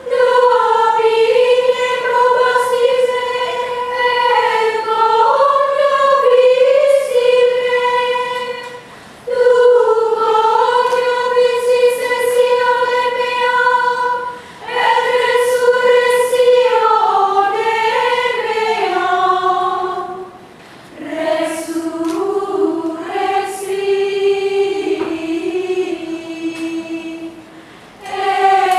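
Women's choir singing Gregorian chant unaccompanied and in unison, one melodic line in long phrases separated by short breaths. The line moves lower in the last phrases.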